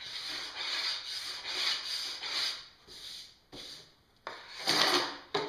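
Metal scraper drawn in strokes across a snowboard's P-Tex base, shaving off excess hardened P-Tex filler with a rasping scrape. A long stroke is followed by a short one, then a louder stroke near the end.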